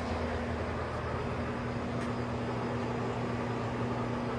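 Sharp 3580M gap bed engine lathe running with its carriage under power feed: a steady machine hum of motor and gearing, with a constant low whine tone running through it.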